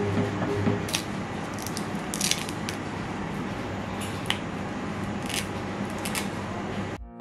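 A few sharp snaps and small crackles as cured resin support struts are broken off a 3D print by hands in nitrile gloves, over the steady whir of a machine fan.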